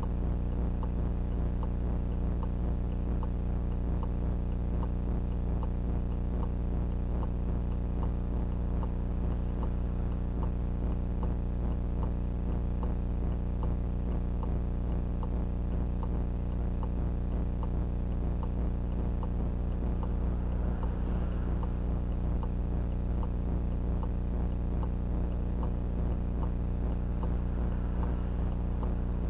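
Steady electrical hum with a regular, even ticking on the audio track of a VIOFO A119S dashcam: the unwanted noise that the recording picks up, a fault of the camera's recording rather than a sound in the car.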